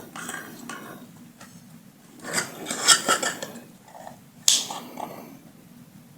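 Light metallic clinks and scraping from the parts of a dismantled loudspeaker driver being handled and worked with a small tool, with a sharp click about four and a half seconds in.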